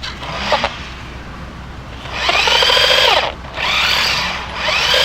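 Electric motor of a Fastlane RC Dark Star toy monster truck whining in short bursts, its pitch rising and falling as it is throttled up and back down; three or four bursts, the longest about a second.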